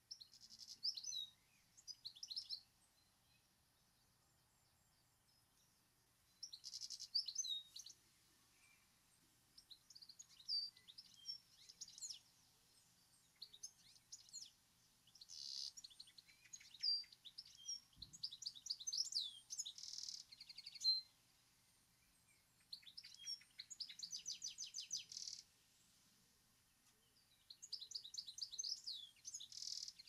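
European goldfinch singing: bursts of fast twittering notes mixed with quick trills, in phrases of one to several seconds separated by short pauses.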